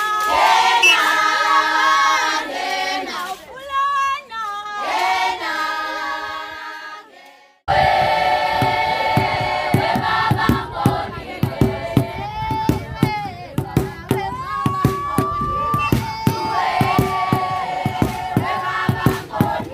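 A group of voices singing together in chorus. After an abrupt cut about a third of the way in, the singing goes on over a quick, steady run of sharp hand claps.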